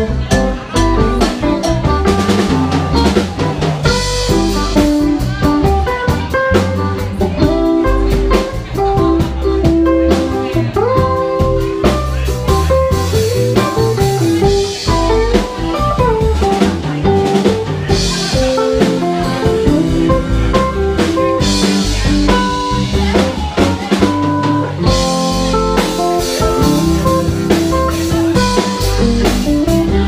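Live rock band playing: electric guitars with bending notes over a drum kit and bass, loud and continuous.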